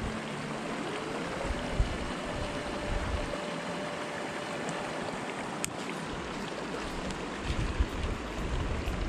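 Small mountain creek flowing steadily, with one sharp click a little over halfway through.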